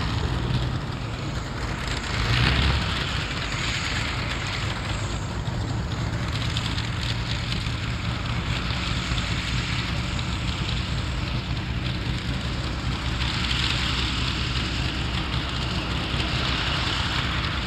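Engine of a modified tractor-pulling tractor running steadily, with a brief swell about two and a half seconds in.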